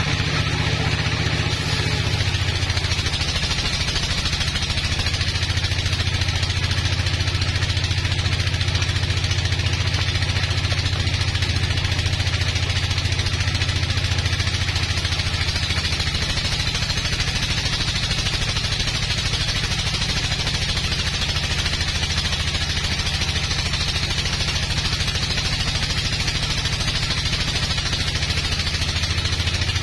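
Sawmill running under load as its blade cuts lengthwise through a large, dense log: a steady engine drone with a continuous hiss from the cut.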